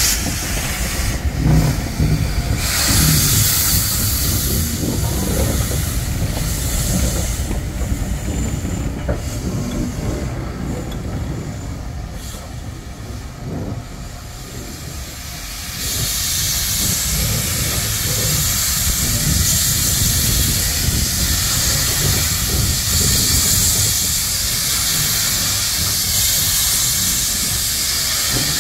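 Steam locomotive hissing steam as it moves slowly away along the track. The hiss dips in the middle, then turns loud and steady from about halfway on, over a low rumble.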